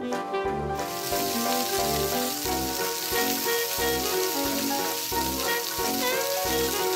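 Frying sizzle sound effect laid over a toy frying pan of play sausages and eggs, starting about a second in as an even hiss. Background music with a regular beat plays under it.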